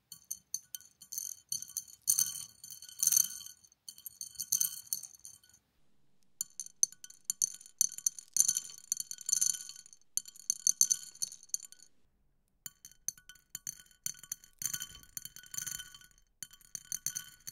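Dried beans dropping and scattering into a hard bowl, a rapid patter of small clinks and ticks. It comes in three takes of the same action, with short silent breaks about six and twelve seconds in.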